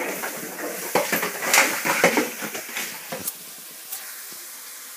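A small dog scrambling about on a tiled floor while playing: irregular clicks and scuffs of claws and paws, busiest at first and quieter from about three and a half seconds in.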